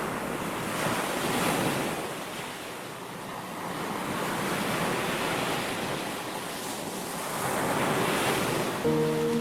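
Ocean surf: waves breaking and washing in, swelling and fading three times. Soft sustained music tones come in near the end.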